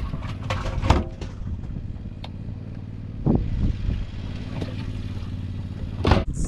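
Boat motor running steadily, with a few sharp knocks, one about a second in and a loud one near the end.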